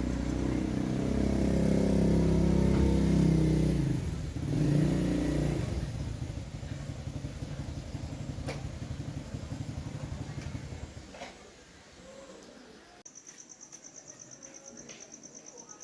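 Small motorbike engine running and revving, then settling to a weaker pulsing run and cutting out about eleven seconds in. Crickets chirp near the end.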